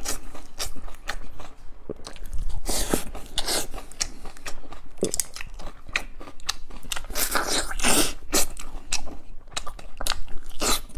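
A person biting and chewing food close to the microphone, with crunching and wet mouth clicks in an irregular run throughout.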